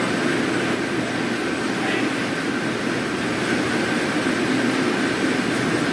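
Steady factory machinery noise from a robotic palletizing line: an unbroken drone with a thin, steady high whine above it.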